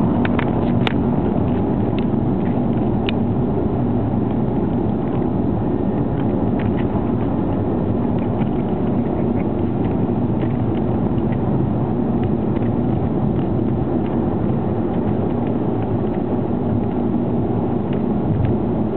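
Steady rumble of a car's engine and tyres on the road, heard from inside the cabin while driving at speed. There are a few light clicks in the first few seconds.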